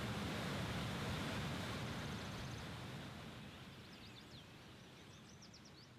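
Steady rushing outdoor noise that fades away over a few seconds, while small birds chirp: a short quick trill about two seconds in, then several quick high calls near the end.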